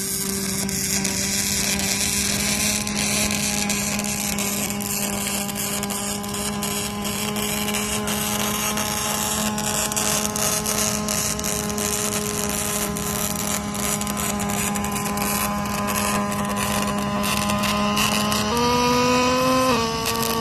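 Robotic welding cell at work: a steady electrical hum with dense crackle over it. Near the end the hum steps up in pitch for about a second, then drops back.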